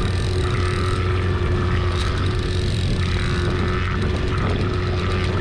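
Boat motor running steadily, a constant low drone with a few steady whining tones over it.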